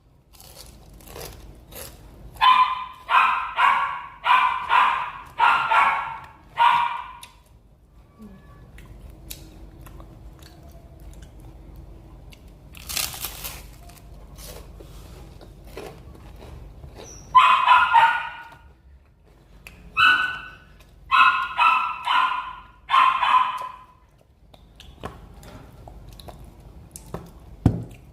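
A dog barking in runs of several barks with pauses between: one run of about five barks early on and another, more broken run in the second half. Faint clicks and a short rustle-like burst of noise sound in the gap.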